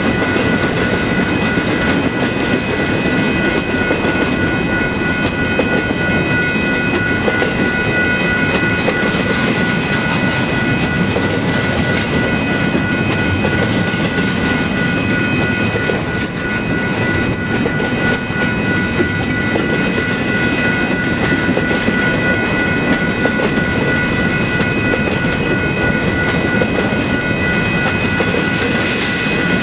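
Double-stack intermodal well cars rolling past: the steady rumble and clatter of steel wheels on the rails, with a steady high-pitched whine held over it.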